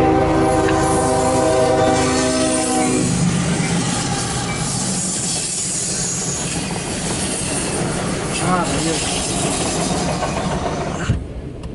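CSX freight locomotive's air horn sounding a steady multi-note chord for about the first three seconds, then a loaded autorack train rolling past with steady wheel-and-rail noise and a brief wheel squeal about eight and a half seconds in. The noise drops off suddenly near the end.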